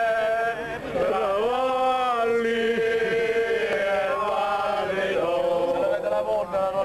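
A group of men singing together, holding long notes.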